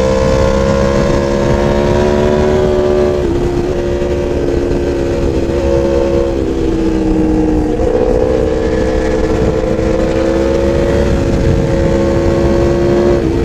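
Sport motorcycle engine running at high revs, heard from the bike itself at speed with wind noise. Its note holds fairly steady, with a brief break about three seconds in and a small step up in pitch near eight seconds in.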